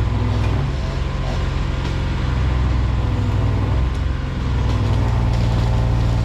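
A large engine of heavy machinery running steadily at a constant speed, with a low even hum and a little rise in level about half way through.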